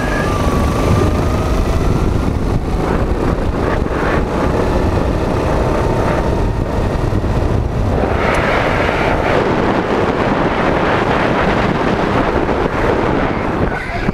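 Go-kart engine running at speed on a lap, its note rising and falling through the corners, with heavy wind buffeting on the onboard camera's microphone.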